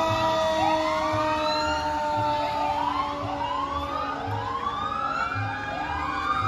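Fire engine sirens sounding: one siren sweeps up in pitch about once a second, over a steady siren tone that slowly sinks in pitch.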